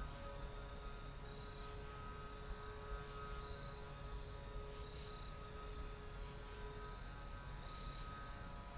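A faint steady hum made of several held tones, over a quiet low rumble.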